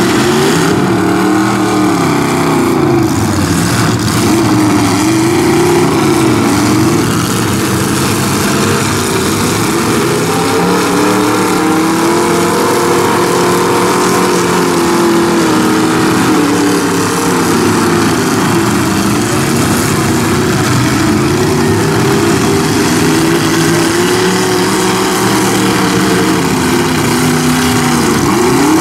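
Several demolition derby trucks' engines revving hard, their pitch rising and falling over and over without a break.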